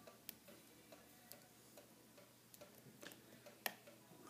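Faint, scattered clicks of a lock pick working the pins of a Castor Musqué CL lock cylinder under tension, with the plug held in a false set. The loudest click comes near the end.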